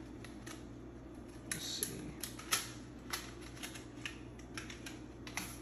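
A toothpick packet being worked open by hand: a run of small, irregular clicks and crinkles from the packaging, sparse at first and coming thicker after about a second and a half.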